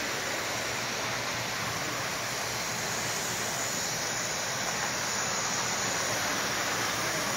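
Steady rolling rumble and hiss of an O scale two-rail model train, a brass Great Northern P2 4-8-2 steam locomotive pulling heavy kit-built reefer cars over metal track, growing slightly louder toward the end.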